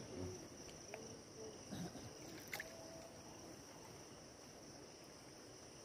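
A steady high insect chorus, like crickets, over faint water sounds from a small boat moving through floodwater, with a few soft clicks and knocks in the first half.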